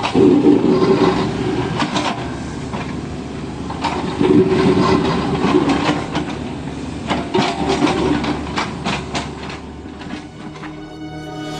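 Kubota U50 mini excavator's diesel engine running, swelling louder three times under hydraulic load, with repeated short knocks and scrapes of digging on rubble.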